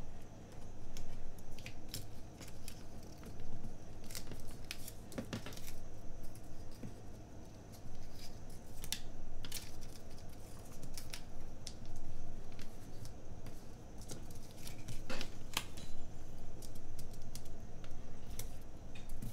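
Paper stickers and planner pages being handled, peeled and pressed down by hand: scattered light clicks and rustles at irregular intervals, several a second at times.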